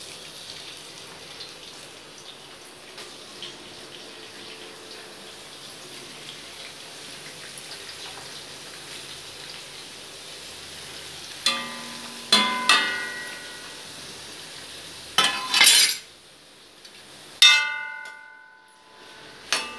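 Pirandai (adamant creeper) stems frying in sesame oil in a steel kadai, a steady sizzle. In the second half a steel ladle clanks against the kadai about six times, each strike ringing briefly.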